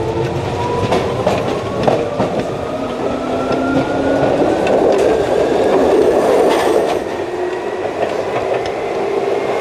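Tokyu 8500 series electric train heard from inside the car, running loud. A motor whine rises steadily in pitch as the train gathers speed, over the running roar and scattered clicks from the rails.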